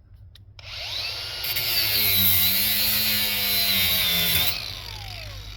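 Angle grinder spinning up and cutting through the air conditioner's copper tubing with a loud high hiss, then winding down with a falling whine about four and a half seconds in.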